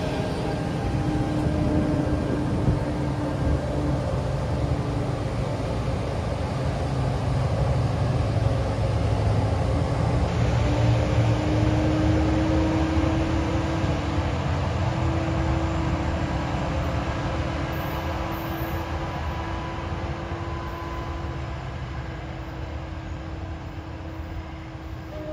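NJ Transit ALP-45DP dual-mode locomotive running on its diesel engines as it pulls away: a steady engine drone whose whine rises a little in pitch about ten seconds in, then grows fainter as the locomotive moves off.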